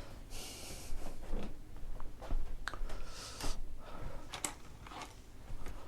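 Light handling noises from working on an engine by hand: scattered small clicks and taps with rustling, and two short breathy hisses, about half a second in and about three seconds in.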